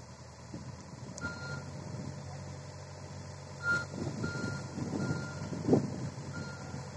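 Hitachi mini excavator's diesel engine running with its travel alarm giving short, evenly pitched beeps on and off from about a second in, as the machine creeps along on its tracks; a couple of dull knocks come through as well.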